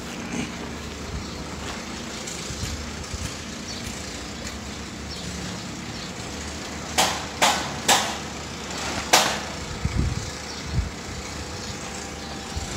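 Steady low background rumble. Four sharp knocks come about seven to nine seconds in, followed by two dull thumps.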